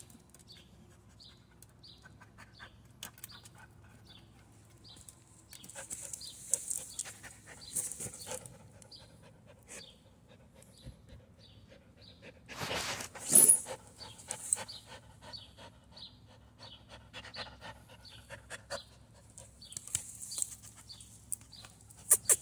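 A Carolina dog sniffing and breathing hard, with her snout pushed into the centre of a car wheel rim to get at a ball inside. Soft, quick puffs with scattered scratches and knocks, and a louder scrape about halfway through.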